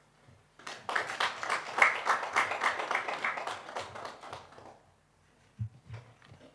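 A handful of people clapping for about four seconds, starting about half a second in and fading out. Two soft low thumps follow near the end.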